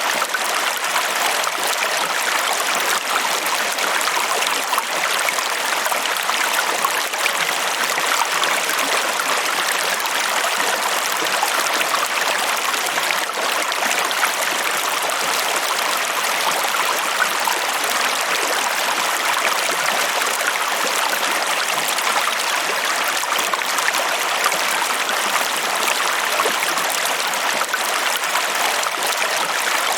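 Water flowing steadily in a stream: an even, bright rush with fine splashing flecks and no deep rumble.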